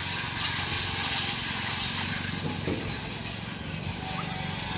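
Power grinders grinding old sealant off a wooden sea boat's hull: a steady, hissing grind with no pauses.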